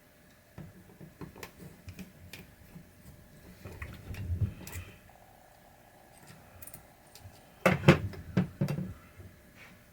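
Hand-tool work on small screws and metal parts: scattered light clicks and taps, with a louder cluster of knocks and clatter about eight seconds in.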